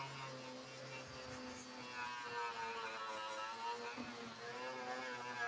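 Electric angle grinder with a paint-stripping disc running against steel door metal, a steady motor whine whose pitch wavers as the disc is pressed on and eased off; it is cleaning the door edge back to bright bare metal ready for welding.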